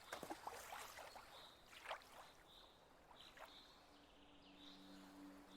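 Faint lapping and splashing water. A soft sustained music tone fades in about three and a half seconds in.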